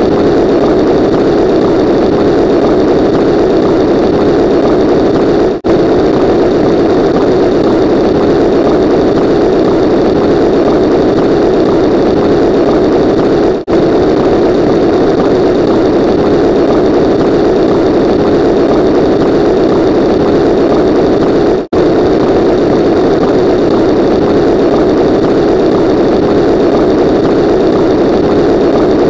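Loud, steady engine-like drone, a sound effect looped about every eight seconds with a brief dropout at each repeat.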